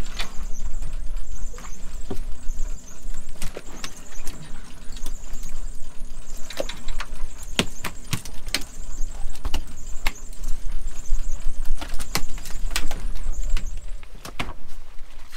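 Working sounds on the deck of a cod-jigging boat: a steady low rumble, a thin high squeal that keeps coming and going, and scattered sharp knocks and clicks of fishing gear and fish being handled.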